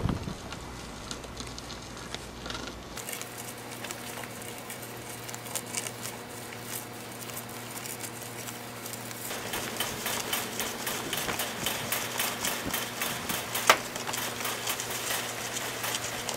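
Homemade steel-pipe water drill being twisted down into a wet hole: the pipe scrapes and knocks in the muddy dirt, quickening into a fast run of scrapes about halfway through, with one sharper knock a few seconds before the end.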